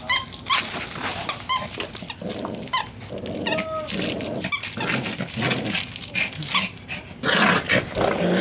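Dog growling in play while worrying a toy, with short high squeaks that come thickest in the first few seconds. The growling sounds fierce but is play.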